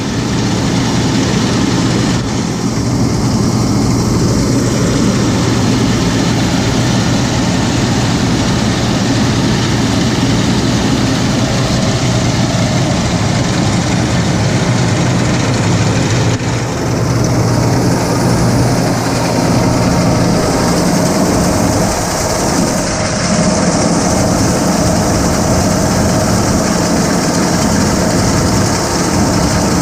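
Farm tractor engine running steadily under load, driving a John Deere round baler, with the baler's machinery running along with it. The sound shifts slightly about two-thirds of the way through.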